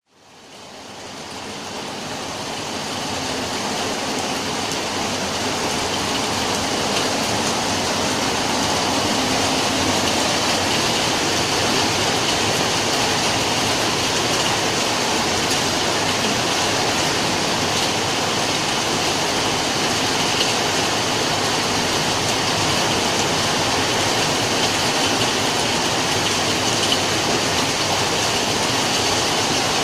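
Steady rainfall, an even hiss that fades in over the first few seconds and then holds level.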